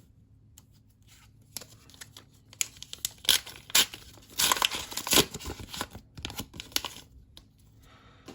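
A trading-card pack wrapper being torn open and crinkled: a few sharp clicks, then a dense run of rips and rustles lasting about four seconds, loudest around the middle.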